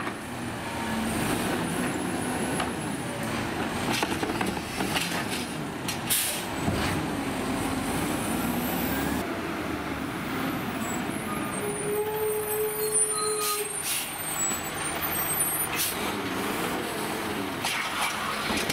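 Heil 7000 automated side-loader garbage truck: diesel engine running and revving up and down as the truck drives and works its lifting arm, with several short hisses of its air brakes.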